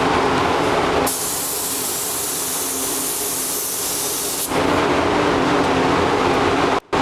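Gravity-feed SATA paint spray gun hissing as compressed air atomizes paint, from about a second in until about four and a half seconds in. Before and after it there is a steady mechanical drone with a low hum. The sound cuts out briefly near the end.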